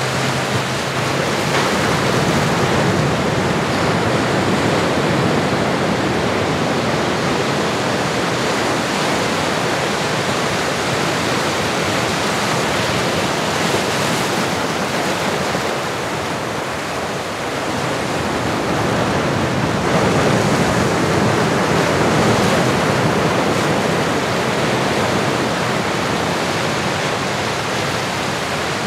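Recorded ocean surf: a steady wash of waves that swells and eases slowly, dipping about halfway through and building again.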